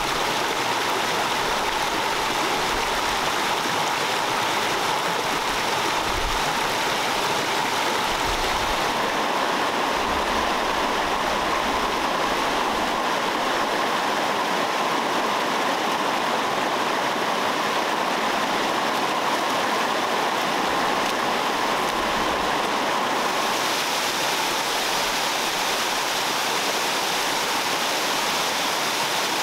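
Shallow rocky mountain stream and waterfall rushing over stones in a steady, even rush of water. Its tone shifts slightly twice.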